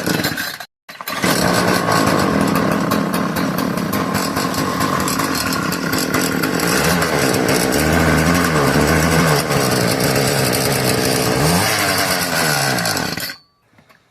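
Small two-stroke weed eater engine running fast and loud, its pitch rising and falling several times as it is revved, then cutting off suddenly near the end.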